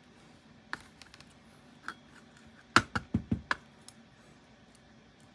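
Small metal lock parts and tools being handled, sharp light clicks and taps. There is a single click about a second in and another near two seconds, then a quick run of four or five louder clicks about three seconds in.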